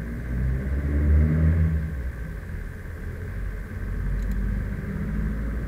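Low, steady engine-like rumble that swells about half a second in and eases off around two seconds, over a steady background hum; a faint click about four seconds in.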